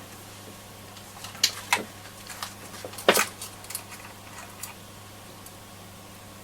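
Light clicks and taps of small metal hand tools at a radio's circuit board, several in the first few seconds with the loudest about three seconds in, over a low steady hum.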